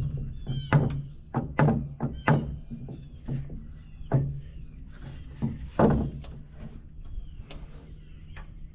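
A dozen or so irregular knocks and thunks, the loudest about six seconds in, over a steady low hum.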